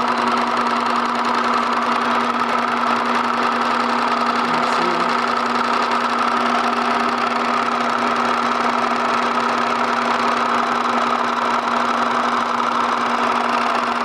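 Electric sewing machine running at a steady speed under its foot pedal, an even mechanical drone with no change in pace.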